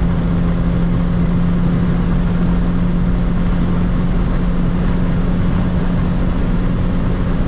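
Cabin sound of a 1992 Volvo 940's naturally aspirated 2.3-litre eight-valve four-cylinder engine, a steady drone at high revs as the car accelerates through about 160 to 167 km/h, under heavy wind and tyre noise.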